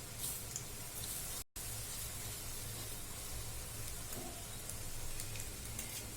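Oats-and-egg batter fritters sizzling in hot oil in a kadai, a steady hiss that cuts out briefly about a second and a half in.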